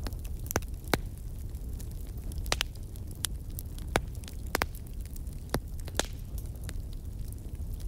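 Crackling fire: a steady low rumble with sharp, irregular pops and snaps, the loudest about a second in and about four seconds in.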